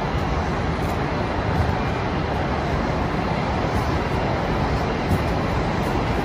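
Steady roar of distant city traffic, constant throughout with no distinct events standing out.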